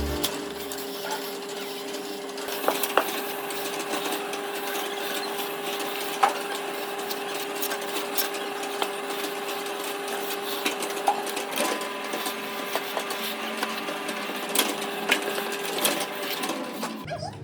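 A small machine running steadily with a hum, with scattered clicks and knocks over it.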